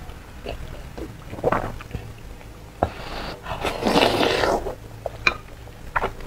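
Close-up eating sounds: a long noisy slurp as a hot piece of braised meat is drawn off the chopsticks into the mouth about three seconds in, with a few wet lip smacks before and after.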